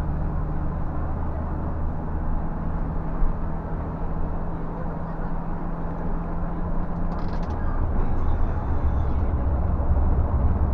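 Scania bus engine running with road noise, a steady low hum heard from inside the bus. About seven seconds in there is a brief rattle, the engine's tone changes, and the low rumble grows louder.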